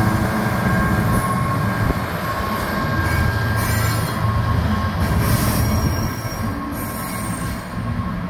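EWS Class 66 diesel locomotive's twelve-cylinder two-stroke engine running as it passes close by, followed by loaded stone wagons rolling past with a steady rumble. High-pitched wheel squeal comes and goes several times as the wagons go through the junction.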